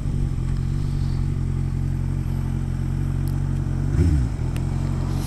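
Kawasaki ZX1000 inline-four motorcycle engine running at a steady, low engine speed, quiet and smooth, with a brief dip and rise in pitch about four seconds in.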